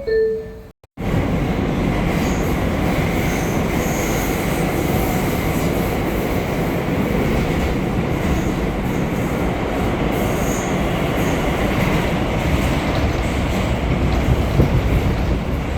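R179 subway car pulling out and running, heard from inside the car: a steady loud rumble of wheels on rail with a few faint high wheel squeals. It opens with the end of the two-tone door-closing chime, then drops out briefly just before a second in.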